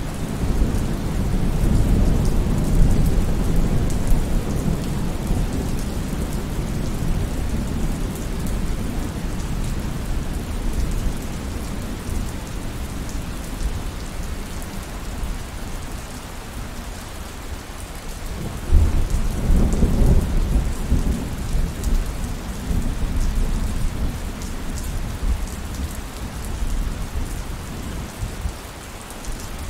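Steady rain with rolling thunder. A low rumble at the start eases off, then a new rumble breaks in suddenly about two-thirds of the way through and dies away over a few seconds.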